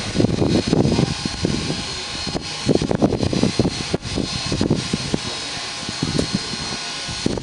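Steam locomotive standing at the platform with steam hissing steadily and a faint steady whine, over irregular low rumbles.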